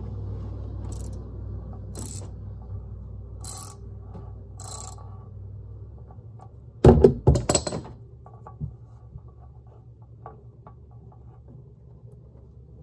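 A ratchet and extension working on the oil filter housing under a Toyota Camry V6, loosening the housing cap. Short metallic clicks come about once a second for the first few seconds, then a brief clatter of loud metal knocks about seven seconds in.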